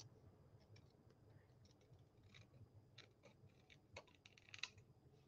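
Faint snips of small scissors cutting through thin die-cut cardstock: a scatter of short, quiet clicks, mostly in the second half.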